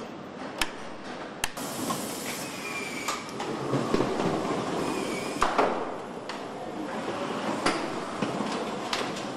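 Car assembly-line noise: a steady hiss and hum with scattered sharp clicks and knocks of parts being fitted into a dashboard module.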